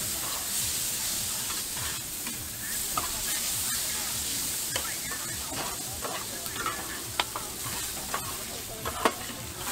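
Noodles sizzling as they are stir-fried on a flat-top griddle, with metal spatulas scraping and clinking against the griddle several times.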